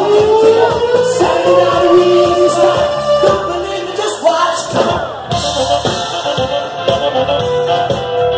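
Live band playing with a lead singer over electric guitars, bass, drums and saxophone, the drums keeping a steady beat. A long held note slides slowly up in pitch over the first three seconds.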